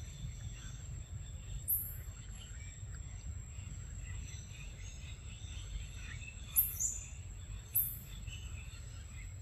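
Forest ambience: a steady high insect drone over a low rumble, broken three times by short, sharp, high-pitched bird chirps, some falling in pitch.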